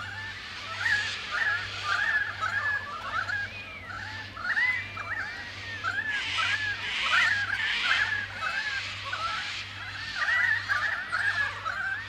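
A flock of birds calling together, with many short, arching calls overlapping in a dense, continuous chorus.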